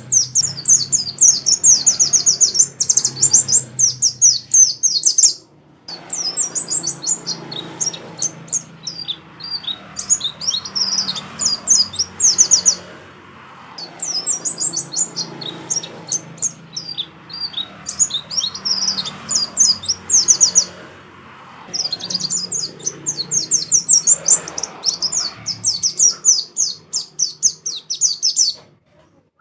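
Oriental magpie-robin (kacer) singing in long phrases of rapid, repeated high notes, with short pauses between phrases and a stop near the end, over a faint low hum.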